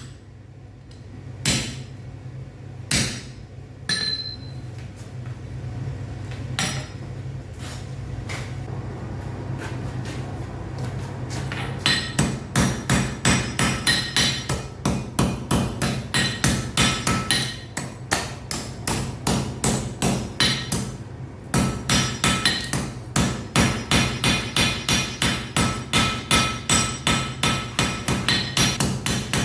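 Blacksmith's hammer striking metal on an anvil: a few separate ringing blows at first, then a steady run of loud strikes at about three a second, with a short pause partway through. A steady low hum runs underneath.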